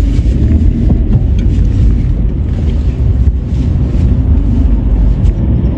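Steady low rumble of a car heard from inside the cabin, its engine running while it sits at the curb.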